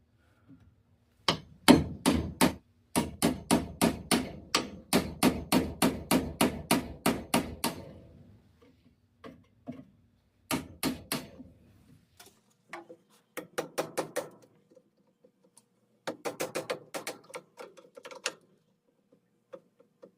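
Hammer striking a chisel to chip the cut stub of ABS drain pipe out of a T fitting's socket: runs of quick sharp taps, about five a second, with short pauses between runs.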